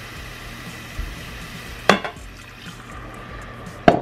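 Browned ground beef sizzling on sauté in an Instant Pot's stainless steel insert as water is poured in, with a steady hiss. Two sharp knocks come about two seconds apart.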